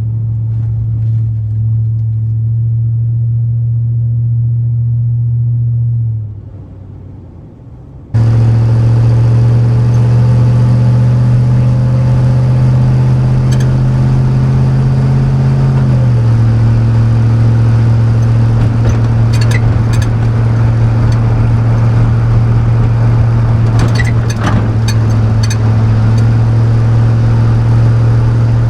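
5.3-litre LM7 V8 pickup exhaust through a single-chamber performance muffler, running at steady revs with a deep, even drone. The sound fades out about six seconds in, comes back abruptly about two seconds later, and drops slightly in pitch a little past halfway.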